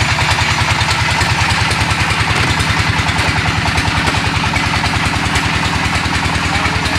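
Engine-driven brick-making machine running steadily, with a fast, even pulsing beat.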